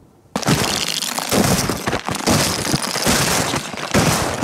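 Footsteps crunching and cracking through the ice crust on snow, starting abruptly about a third of a second in and going on loudly.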